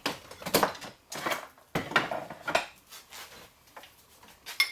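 Metal parts clinking and knocking in a handful of separate strikes as the worn-down disc is changed on an angle grinder, with the grinder switched off.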